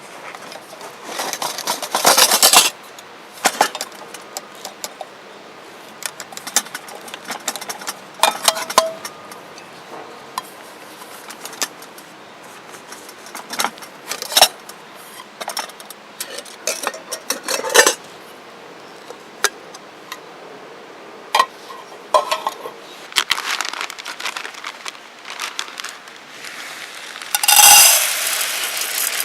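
Objects being handled: scattered clinks and knocks with brief rustling, and a longer, louder scraping rustle near the end.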